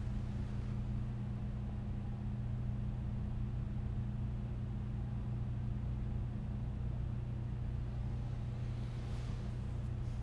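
Steady low hum with faint hiss and no other distinct sound: the room tone of a large church, likely ventilation or electrical hum from the sound system.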